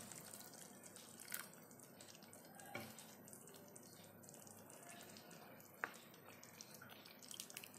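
Faint trickle of hot water poured from a jug into a pan of curry, with a few light clicks and one sharp click about six seconds in as a ladle touches the pan.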